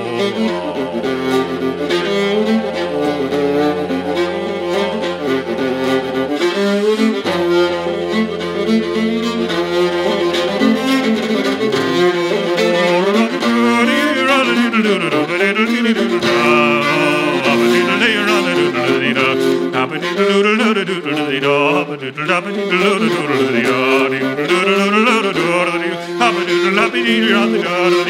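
Solo fiddle playing a slow, ornamented tune, with held drone notes on the lower strings beneath the melody.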